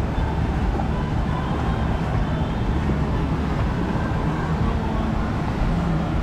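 Steady rush of water pouring out of waterslide outlets into a splash pool, a continuous even noise heavy in the low end.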